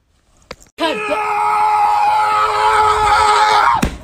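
A long, loud wailing cry held at one steady pitch for about three seconds, starting about a second in and cutting off abruptly near the end.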